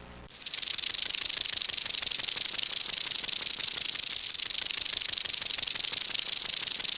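A continuous dry, rapid rattling buzz that starts abruptly just after the beginning and holds steady.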